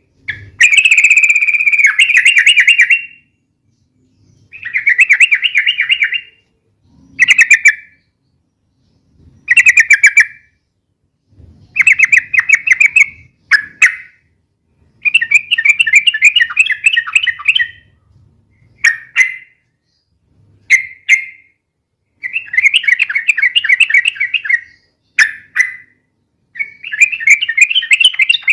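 Yellow-vented bulbul (trucukan) singing noisily: a run of fast, bubbling chattering phrases, each a second or two long, repeated again and again with short pauses between.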